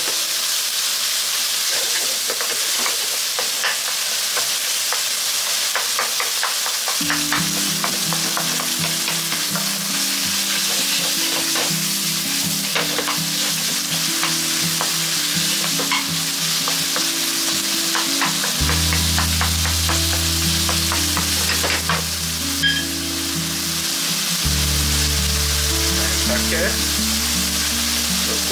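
Minced pork sizzling in a hot skillet as a wooden spatula stirs and turns it, with frequent light scrapes and taps of the spatula against the pan.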